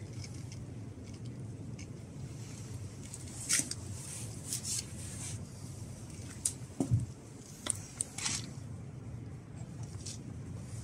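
Knife blade shaving wood at a notch in a stick: several short scraping strokes, irregularly spaced, with a low knock about seven seconds in, over a steady low background hum.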